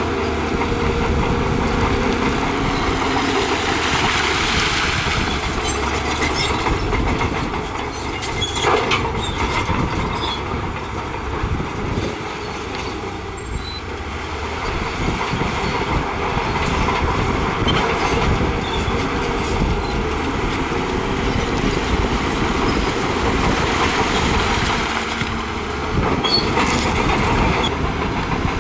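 Crawler bulldozer working: its diesel engine runs under load and its steel tracks clank, with a few sharp knocks of rock or metal.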